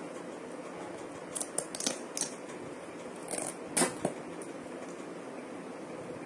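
Stiff clear plastic packaging crackling and clicking as it is handled, in two short clusters of sharp clicks, over a steady background hiss.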